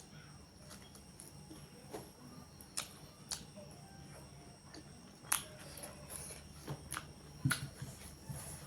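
Close-up mukbang eating sounds: chewing chicken curry, with irregular sharp clicks and smacks, about eight of them, over a faint steady hum.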